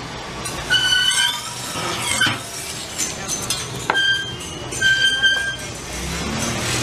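Metal spatula scraping and tapping on a round crepe griddle: three short, high squeals about 1, 4 and 5 seconds in, with a few light clinks between them.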